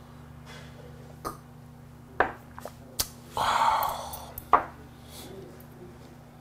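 A shot glass of soju clinks down on a table, with a few other light clicks of tableware. In the middle comes a breathy exhale of about a second, the sigh after downing the shot.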